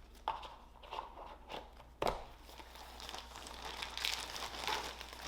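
Plastic jewelry bags crinkling as they are handled, with a few sharp clicks near the start and about two seconds in.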